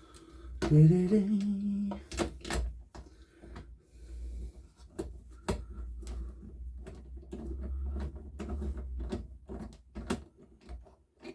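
Scattered clicks and knocks of hands handling tools and parts on a workbench, with a brief hummed note about a second in. No engine is running.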